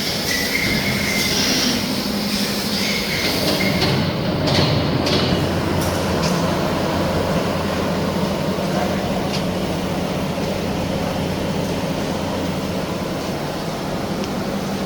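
Reinforcement-cage welding machine running with a steady mechanical hum, with hissing in the first few seconds.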